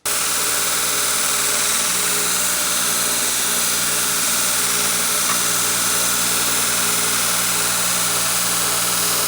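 2x48 belt grinder running steadily at full speed: a loud, even whir and hiss of the electric motor and moving abrasive belt, cutting in suddenly at full speed rather than spinning up.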